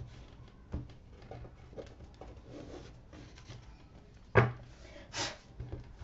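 A deck of tarot cards handled and shuffled by hand: soft card clicks and rustles, with one sharp knock about four seconds in, the loudest sound. A short sliding rustle follows just after it.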